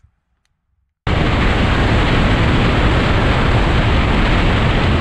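Near silence for about a second, then a sudden, loud, steady rush of wind over the microphone of an action camera on a Royal Enfield Himalayan motorcycle riding at road speed.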